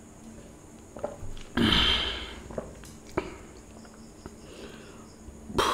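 A person sniffing hard, once about one and a half seconds in and again near the end, with a few small clicks in between.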